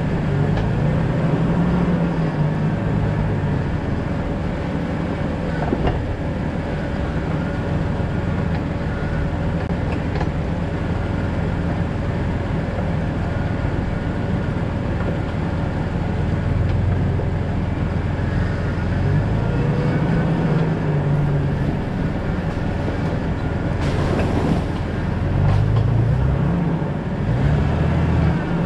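Jeep Cherokee XJ driving: steady engine and road noise, with the engine note rising and falling several times. A brief louder noise stands out about three-quarters of the way through.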